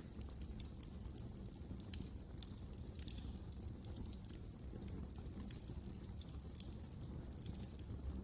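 Wood fire crackling: frequent sharp, irregular pops over a low steady rumble of the burning logs.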